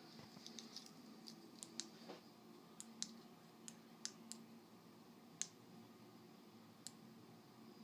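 Near silence with a dozen or so faint, sharp clicks at irregular intervals over a low steady hum.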